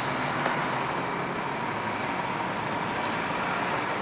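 Cummins diesel engine of an E-One fire truck running steadily as the truck backs slowly into the station bay.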